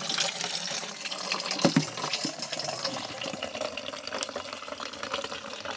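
Spring water running with a steady splashing trickle, with a few light knocks from the plastic bucket being handled.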